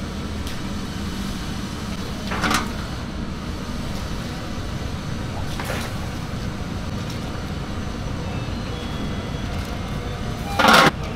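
Steady low kitchen rumble with brief metal clatters about two and a half and six seconds in, and a loud clank of a metal pot lid near the end.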